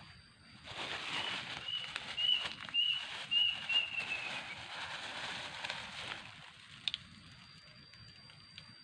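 A bird gives a quick series of five or six short, even chirps, about two a second, the last ones dropping slightly in pitch, over a burst of rustling noise that fades out about six seconds in.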